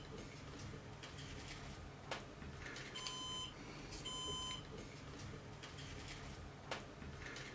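Synology DS1815+ NAS alarm beeping: two short, high beeps about a second apart, the warning that a hard drive has been removed from the array. Two light clicks, one about two seconds in and one near the end.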